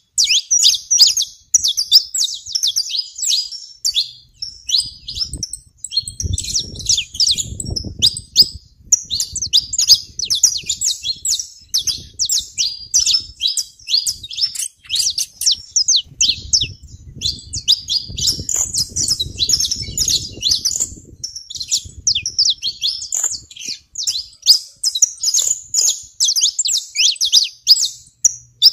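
Saffron finches chirping and singing in a continuous chorus of quick, high, trilling notes with hardly a pause.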